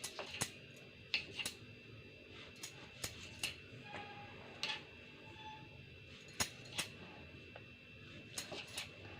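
Crusts being cut off slices of bread: a blade snipping through the bread in irregular sharp clicks, about a dozen in all, over a faint steady high hum.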